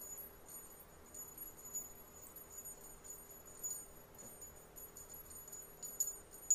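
A small bell jingling in short, irregular shakes, a sharper jingle near the end.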